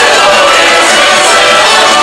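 Croatian folk music played live by an ensemble, loud and continuous, with singing.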